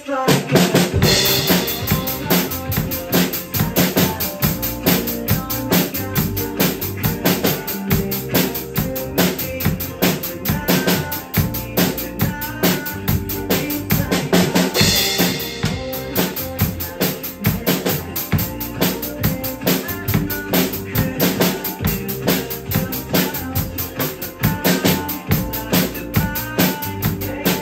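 Acoustic drum kit played in a steady pop groove, with bass drum, snare and hi-hat, along with a recorded pop song with vocals; cymbal crashes mark the beat about a second in and again about halfway.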